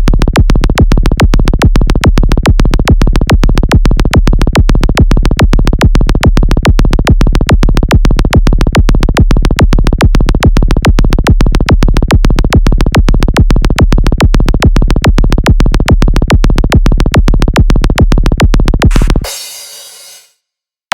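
Electronic dance music: a steady, fast beat with heavy bass and synthesizer. About nineteen seconds in, the beat drops out, leaving a fading wash that dies into a second of silence.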